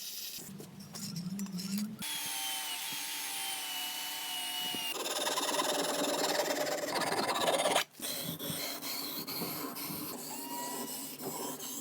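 A power tool working the steel blade of an antique bread slicer to sharpen and polish it: a motor whine with grinding and rubbing, in several short edited clips that change abruptly about 2, 5 and 8 seconds in.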